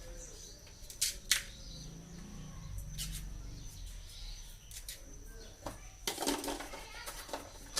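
A few sharp clicks and knocks, about a second in, again shortly after and about three seconds in: hand-handling of the plastic hose fittings of a washing-machine inlet water filter, over a faint low hum.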